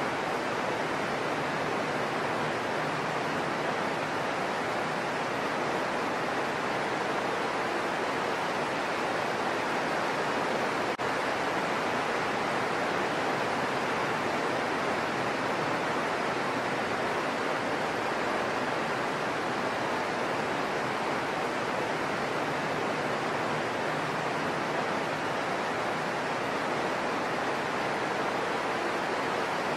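Heavy rain falling steadily on leafy trees, an even rushing hiss that holds without change.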